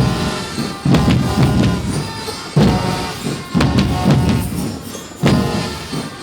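Music with heavy drum hits every second or so over held melodic tones.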